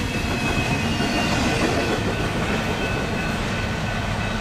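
Union Pacific double-stack container train rolling by, a steady rumble and clatter of wheels on rail as the last well cars pass. A faint high squeal runs over it.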